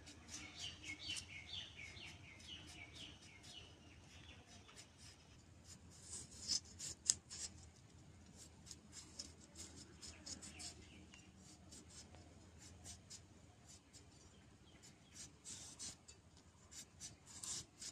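Potato being peeled on a boti, the upright kitchen blade: a run of short, soft scraping strokes as the skin is shaved off, loudest about six to seven seconds in. A bird chirps a quick string of calls during the first few seconds.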